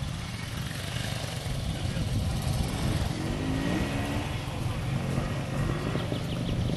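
Vintage trial motorcycle engine running steadily at low revs, with faint voices about halfway through.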